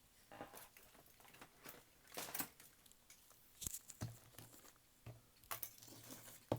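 Faint, intermittent rustling and light clicks of small parts being handled and sorted through by hand while searching for a small retaining clip, with one sharper click about three and a half seconds in.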